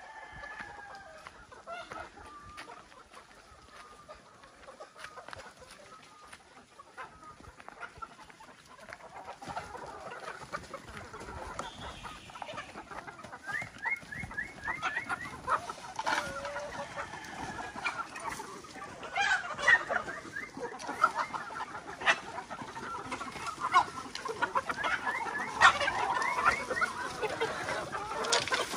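A flock of game fowl, roosters and hens, clucking and calling, the calls growing denser and louder in the second half as the birds crowd together.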